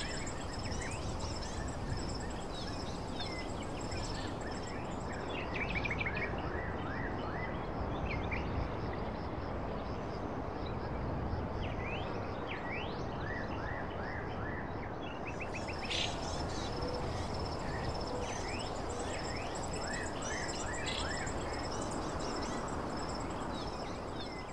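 Outdoor nature ambience: a steady background hush with small birds chirping in short, quick repeated calls throughout, over a thin, steady, high insect trill.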